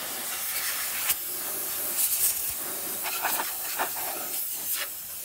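Compressed air hissing steadily, with several louder blasts, blowing dust out of the inside of a desktop computer case.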